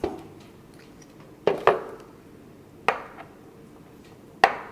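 Sharp clicks and knocks from handling a smart lock while its batteries are being taken out: about five separate hard taps, two of them close together about a second and a half in.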